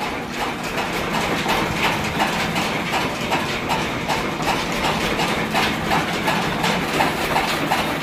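Stationary farm engine running steadily and driving a belt-driven chaff cutter for fodder, with a regular clack about twice a second.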